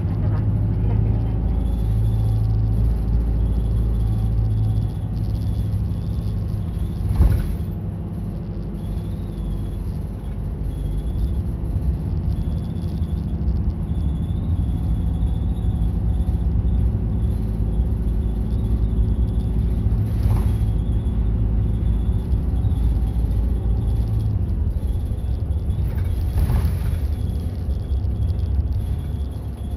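Route bus heard from inside the cabin: the engine and road noise rumble steadily as it drives. There is a sharp knock about seven seconds in, and two fainter short noises later.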